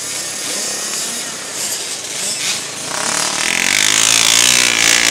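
Engine of a racing three-wheeler ATC running hard, with the pitch wavering as the rider works the throttle. It grows louder about three seconds in as the machine comes closer.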